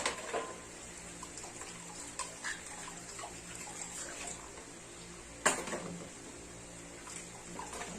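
Feeding bottles being washed by hand in a basin: water sloshing, with a few sharp knocks of the bottles against each other or the basin. The loudest knock comes about five and a half seconds in. A steady low hum runs underneath.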